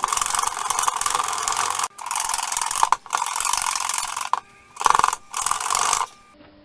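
Wire whisk beating egg whites in a bowl by hand: a fast rattling scrape in several spells with brief pauses, stopping about six seconds in. The whites are close to stiff peaks.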